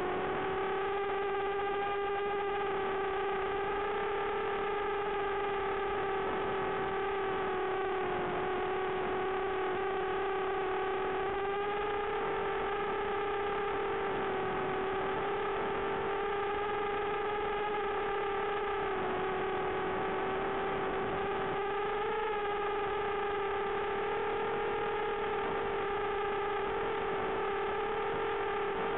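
Brushless motors of a 6-inch FPV racing quad running at a steady cruise, heard as an even, thin hum through the analog video link's audio, with no highs. The pitch drifts only slightly as the throttle changes.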